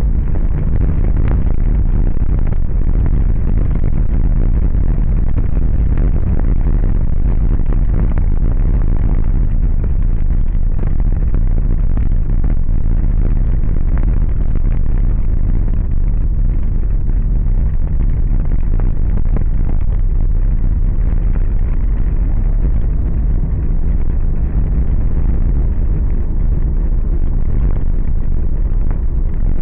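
Steady low rumble of a car driving over patched, uneven asphalt, heard from inside the cabin through a dashboard camera, with frequent small knocks and rattles from the road surface.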